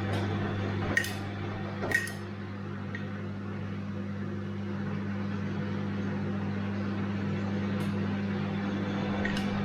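Bosch washing machine running mid-cycle: a steady low motor hum over the churning of the drum, with a few sharp clicks about a second apart near the start and again near the end.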